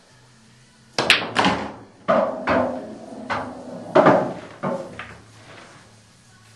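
Pool cue striking the cue ball with a sharp click about a second in, an instant clack of ball on ball, then a run of hollow knocks as the potted object ball drops through the pocket and rolls inside the table.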